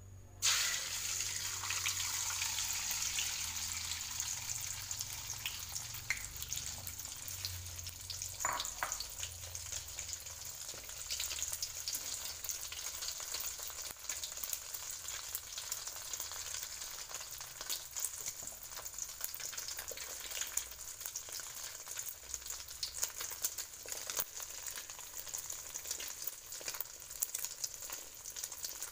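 Beaten egg hitting hot cooking oil in a wok about half a second in, with a sudden loud sizzle. It settles into steady deep-frying sizzle with constant crackling as the egg's edges puff up, slowly getting a little quieter.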